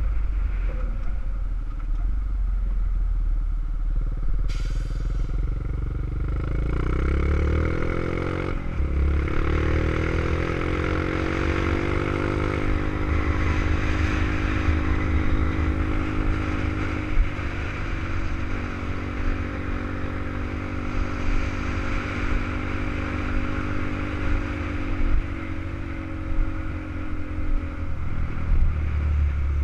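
Honda CRF50's small single-cylinder four-stroke engine pulling the bike along under way. It climbs in pitch, drops about eight and a half seconds in at a gear change, climbs again and holds steady, then falls off near the end as the throttle closes. Wind rumbles on the microphone throughout.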